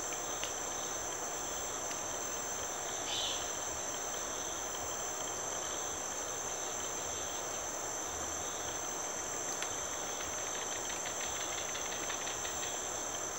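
Steady, high-pitched chorus of tropical insects, unbroken throughout, with a brief chirp about three seconds in.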